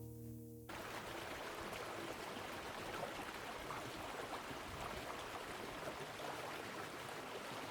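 Steady rushing of a mountain creek, an even hiss of running water that starts abruptly just under a second in, as the tail of guitar music cuts off.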